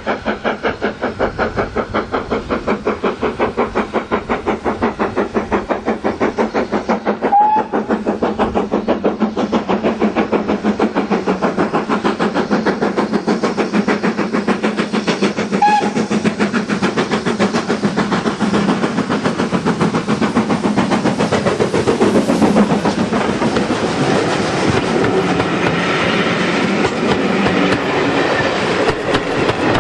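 BR Standard Class 4MT 2-6-4 tank steam locomotive working a train, its exhaust beating fast and even. It passes at close range, then its coaches roll by with their wheels clicking over the rail joints in the second half. Two brief high-pitched peeps come about eight seconds apart.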